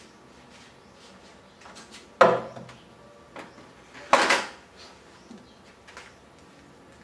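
Two loud clattering knocks about two seconds apart, with lighter clicks around them, as a metal cook pot is handled and set down beside the camp stove.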